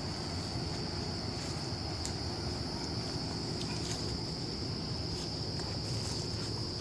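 Steady, high-pitched chorus of night insects, with a low rumble underneath.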